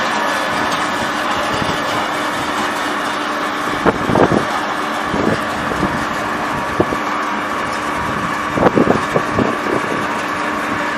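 Wood pellet production machinery running steadily with a hum and several fixed whining tones, and short bursts of clattering about four seconds in and again near nine seconds.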